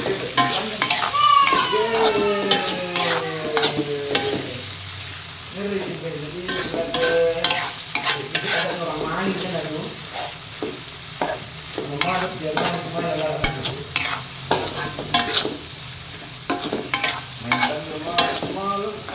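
Metal spatula scraping and stirring sambal petai in a metal wok, with repeated scrapes and clicks against the pan over steady sizzling oil. The heat has been turned down low.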